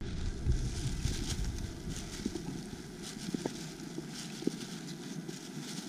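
Outdoor ambience: a steady hiss with a few faint, light taps.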